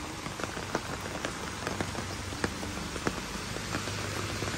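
Heavy rain falling steadily, with close drops tapping sharply at irregular intervals.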